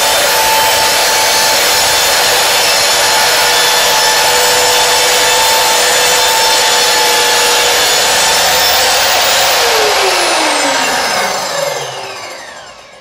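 Corded circular saw running and cutting through an MDF sheet, a loud steady whine over the noise of the cut. About nine and a half seconds in the trigger is released and the motor's pitch falls as the blade spins down.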